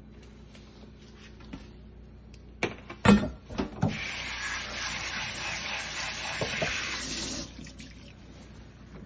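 A few knocks and clatters of handling at the sink, then a kitchen faucet runs water through a plastic colander of trimmed mushrooms into a stainless steel sink for about three and a half seconds before it is shut off.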